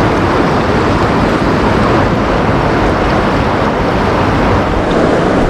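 Steady rush of flowing creek water, an even noise with no breaks.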